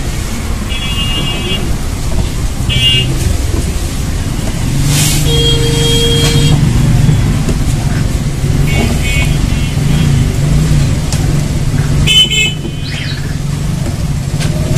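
Background road traffic: a steady engine hum with several short vehicle-horn toots spread through it.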